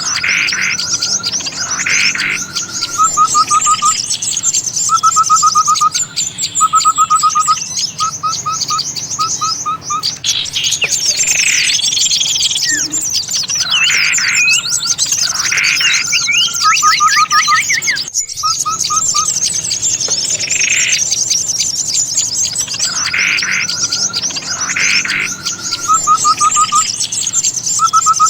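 Bird-trapping lure recording of a dense chorus of small songbirds chattering and twittering. Short rapid trills repeat every second or two, and louder calls cut in every couple of seconds.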